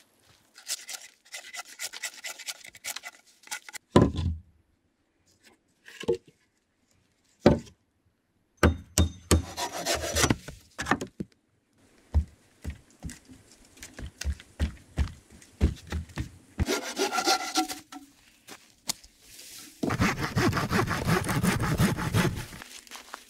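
Hand saw cutting through a log in quick back-and-forth strokes near the end. Before that, a series of separate knocks and thuds, two of them loud and sharp.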